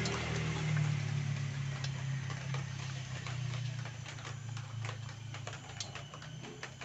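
Pliers gripping and turning a loosened broken bolt out of an aluminium motorcycle crankcase: scattered light metallic clicks and ticks, more frequent in the second half. A low steady hum in the background fades away.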